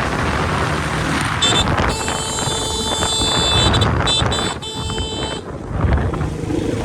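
Vehicle running with wind buffeting the microphone, and a high horn-like toot sounding for about four seconds from about a second and a half in.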